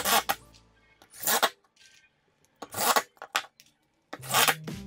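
Cordless drill driving screws into a stack of laminate flooring scraps in about five short bursts, each under half a second long.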